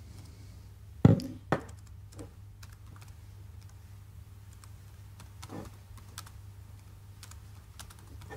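Typing on a laptop keyboard: scattered key clicks, with two louder thumps about a second in, over a steady low hum.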